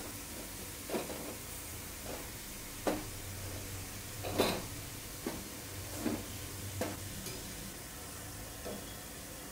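Gujiyas deep-frying in hot oil in a kadhai: a steady sizzle of bubbling oil, broken by a few short clicks and pops.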